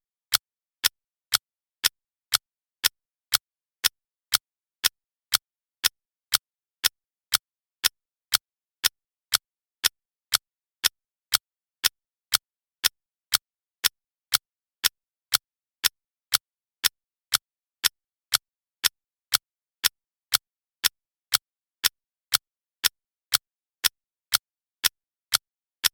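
Clock ticking at a steady rate of about two sharp ticks a second, with silence between them.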